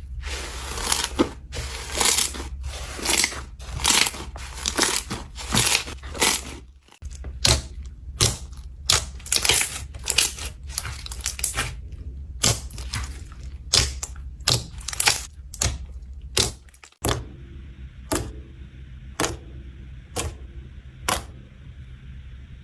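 Slime being squeezed and poked by hand, a run of sharp crackling squishes and pops about two a second. Near the end they thin to about one a second.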